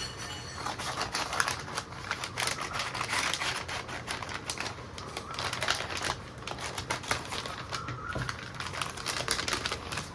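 A shipping package being opened by hand: a dense, irregular run of crackling, rustling and clicking as the packaging is torn and handled.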